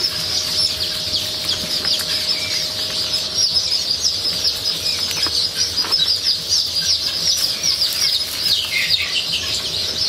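Many chicks peeping together in a dense, steady chorus of short, high, falling notes.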